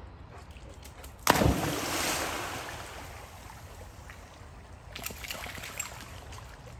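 A dog plunges into the water about a second in with a loud splash that dies away over a couple of seconds, followed by a smaller burst of splashing near the end as a dog wades and swims.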